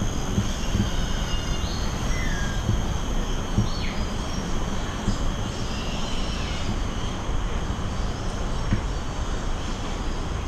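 A steady low rumble of outdoor noise with a few short, faint bird chirps over it in the first few seconds, and a thin steady high tone throughout.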